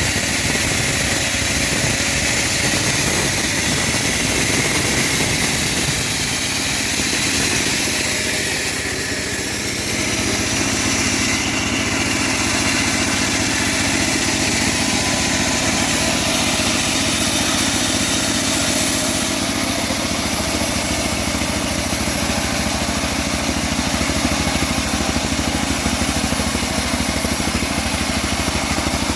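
Homemade band sawmill running steadily with its motor and blade going, as it saws an old teak log. The level dips slightly and the tone shifts about eight to ten seconds in.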